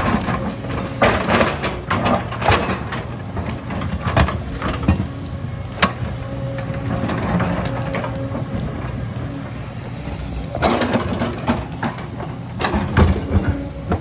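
JCB tracked excavator's diesel engine running under load with a steady drone, while its bucket digs and dumps rock and soil. Repeated knocks and clatter of stones come in clusters through the drone.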